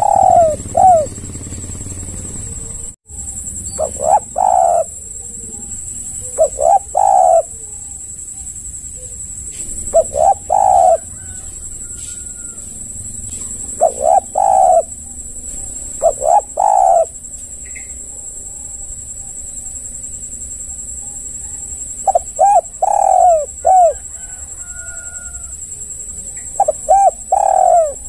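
Spotted dove (tekukur) cooing: repeated phrases of two or three low notes, one every three to six seconds. A steady high whine runs behind it.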